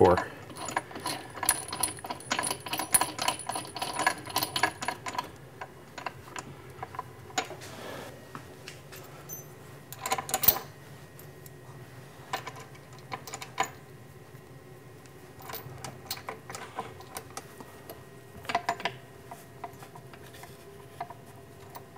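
Small metal clicks and clinks as a bolt is worked by hand into a tight gap in an aluminium spindle mount: a quick run of ringing clinks over the first few seconds, then scattered clicks, the loudest about ten seconds in.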